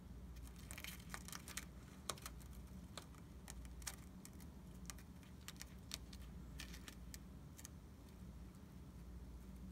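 Faint, irregular clicks and crunches as an African fat-tailed gecko seizes a cricket held in metal tweezers and chews it, over a low steady hum.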